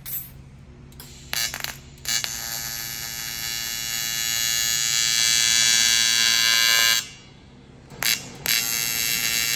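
TIG welder's AC arc buzzing on aluminum plate while two plates are fused into a tack without filler rod. It comes as a couple of brief arc starts, then a long buzz from about two seconds in that grows louder as the foot pedal adds heat. The arc drops out around seven seconds in, blips once and strikes again near the end.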